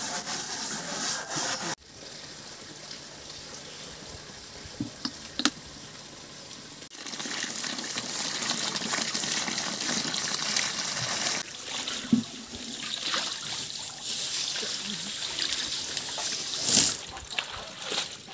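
Water sloshing and trickling as water spinach is rinsed by hand in a metal basin, with a few sharp knocks. The level drops abruptly about two seconds in and picks up again about seven seconds in.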